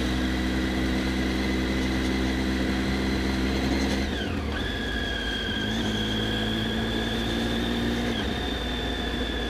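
Triumph Street Triple 675's three-cylinder engine running as the motorcycle is ridden, with a steady high whine over the engine note. About four seconds in, the pitch dips sharply and the engine note falls away briefly, then it carries on slightly lower.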